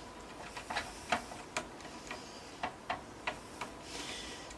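A screwdriver undoing a motherboard screw in a desktop PC case: a string of light, irregular clicks, about two or three a second.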